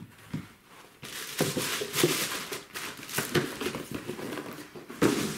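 Tissue paper crinkling and rustling in a cardboard shoebox as shoes are packed away, with a few knocks of the box, the loudest near the end.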